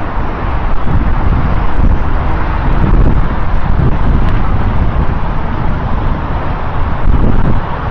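Steady roar of highway traffic, cars and trucks passing on a multi-lane road, with wind buffeting the microphone in an irregular low rumble.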